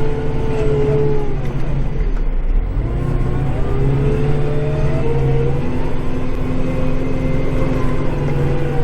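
Kubota tractor's diesel engine working under load, heard from inside the cab; its pitch sags about two seconds in, then climbs again and holds steady.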